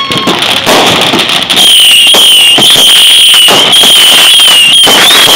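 Fireworks going off close by, shooting sparking projectiles: a few crackling pops, then from about a second and a half in a very loud, shrill whistle that wavers in pitch and keeps going.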